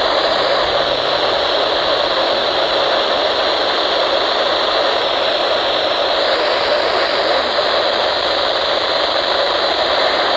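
Steady static hiss from a weather radio receiver, with no voice or tone coming through.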